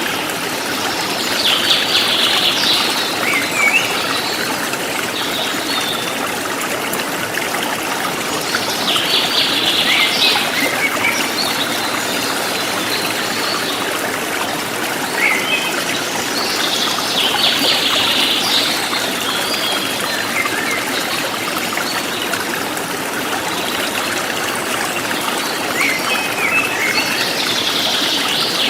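A flowing forest stream, steady water running and trickling, with a bird singing short chirping phrases about every eight seconds.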